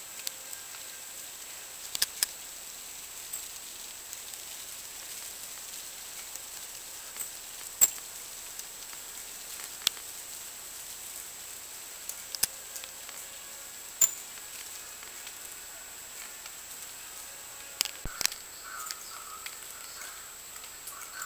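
Birds at a feeder: a handful of sharp isolated clicks and taps spread out over steady background hiss, with a few faint chirps near the end.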